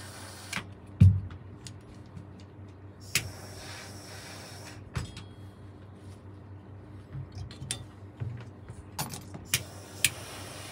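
Workbench handling noises during saxophone repair: scattered metallic clicks and taps, with one heavier knock about a second in.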